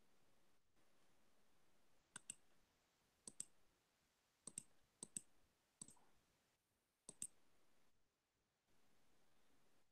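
Faint computer mouse clicks: about six quick double clicks, each a press and release, spread over a few seconds.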